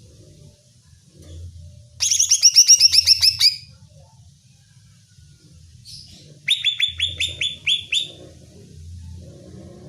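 Cucak ijo (greater green leafbird) singing two rapid bursts of repeated sharp down-slurred notes, each about a second and a half long, a few seconds apart: a heated, combative song.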